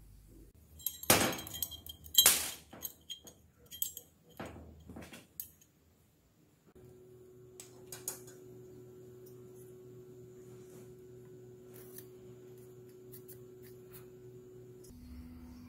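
A welded steel workpiece clinks and knocks against metal as it is handled, several sharp clinks in the first few seconds, two of them loud. Then a faint steady hum runs on.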